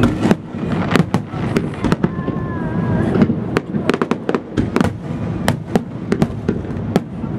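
Aerial fireworks shells bursting one after another: a steady string of sharp bangs, about two or three a second, over a constant low rumble.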